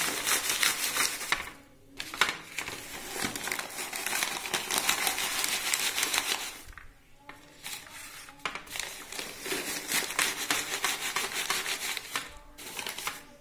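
Lined paper crinkling as it is rubbed over a pile of dry salt-roasted corn kernels, with the kernels rustling against it. The rubbing knocks the loose salt off the kernels onto the paper. It comes in several bouts, with short pauses about two seconds in and around seven seconds in.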